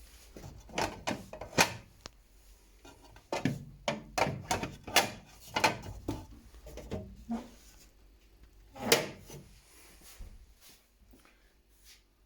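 Plastic drawers and shelves of an Indesit C138G.016 refrigerator being pulled out and pushed back, giving a string of knocks and clatters, with a single loud knock about nine seconds in.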